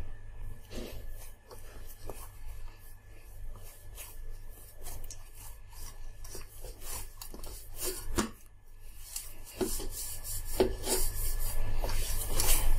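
A hand kneading soft, wet maida dough for bhature in a steel bowl, the dough and fingers rubbing against the metal in irregular strokes that grow louder near the end.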